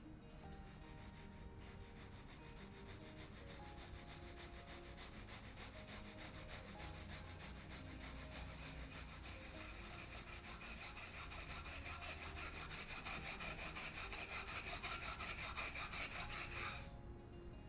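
Blue scouring pad scrubbed back and forth over a burnt frying pan coated in a gritty cleaning paste: fast, even scraping strokes, several a second. The strokes grow louder in the second half and stop shortly before the end.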